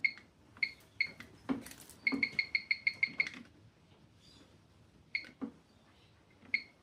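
NX LCD alarm keypad beeping as its keys are pressed: short, high single beeps with soft button clicks, then a quick run of about nine beeps about two seconds in, and two more single beeps near the end.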